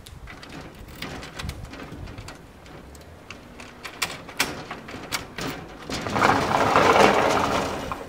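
Latch of a wooden lattice sliding door clicking and rattling as it is worked, then the door sliding open on its track with a loud rolling rush from about six seconds in that fades just before the end.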